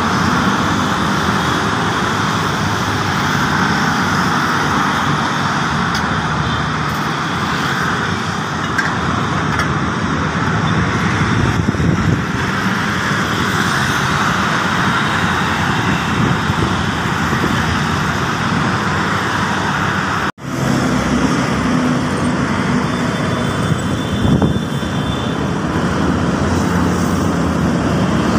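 Steady roadside traffic noise from motorcycles and cars passing on a busy city road, with a low engine hum under it. It cuts out for an instant about twenty seconds in.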